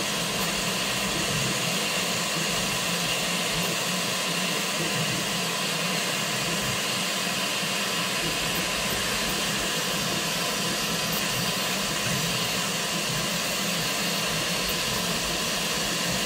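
Elegoo Centauri Carbon enclosed FDM 3D printer running a print: a steady, quite loud whir of its fans and moving print head, with a faint low hum and a high whine held throughout.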